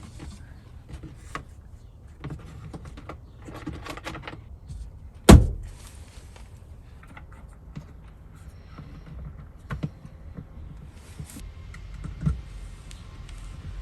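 Scattered small clicks and handling noises of hands working on thin electrical wiring and tools, with one sharp knock about five seconds in that is the loudest sound, and two lighter knocks later on.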